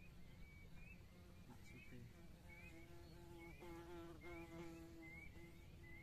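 Faint outdoor nature ambience: a short, high, rising-and-falling chirp repeated steadily about one and a half times a second, from a small animal such as a bird or an insect. Under it runs a faint low hum that swells in the middle.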